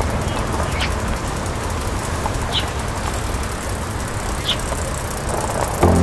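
Outdoor ambience: a steady low rumble and hiss like distant traffic, with three short, high bird chirps about two seconds apart. Music starts just before the end.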